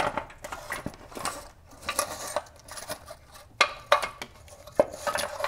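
Engine valve cover being wiggled free of the cylinder head past the wiring and oil filler neck: scattered clicks, knocks and scrapes of hard parts against each other, with two sharp knocks in the second half.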